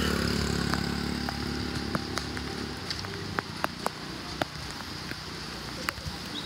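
A motor vehicle engine runs steadily, then fades away a little under halfway through. Underneath is a steady patter of rain with sharp drips and ticks, which stand out once the engine is gone.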